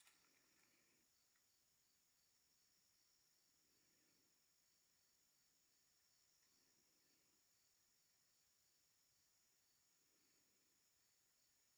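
Faint, steady chorus of insects in the woods: a continuous high shrill trill with a softer regular pulse about twice a second.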